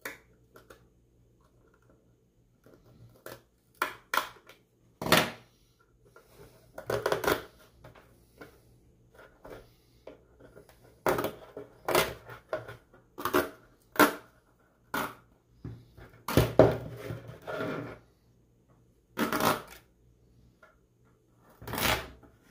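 Stitching being pulled and cut out of a Power Acoustik BAMF 15 subwoofer's cone and surround by hand and with a hobby knife: irregular sharp snaps, rasps and small tearing sounds, about a dozen, with a denser run about two-thirds of the way through.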